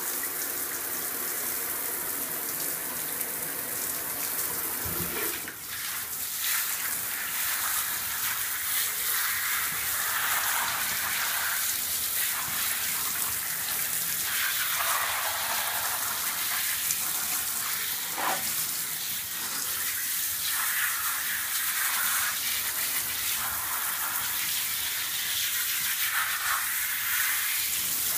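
Handheld shower spraying water onto a muddy springer spaniel in a shower tray: a steady hiss of running water that shifts in tone now and then.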